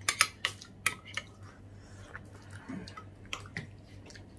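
A metal spoon clinking and scraping against a dish of kare-kare sauce while it is served: several sharp clinks in the first second or so, then two more a little past three seconds.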